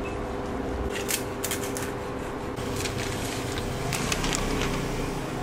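A large knife slicing through a whole roast porchetta, its crisp skin giving sharp crackles and clicks, then the paper rustling as the slices are gathered onto it near the end. A steady low hum runs underneath.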